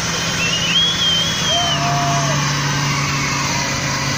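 A Lincoln Town Car's V8 engine held at steady high revs during a burnout, the rear tyres spinning and smoking against the road. The engine note steps down slightly about a second and a half in, and a wavering high squeal rides over it for a moment near the start.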